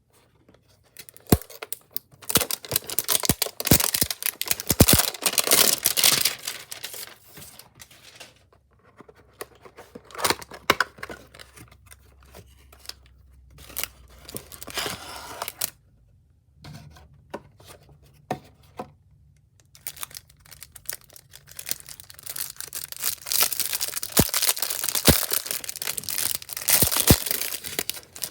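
Plastic wrapping on a box and packs of trading cards being torn open and crinkled by hand, in three long stretches of tearing and rustling with sharp snaps.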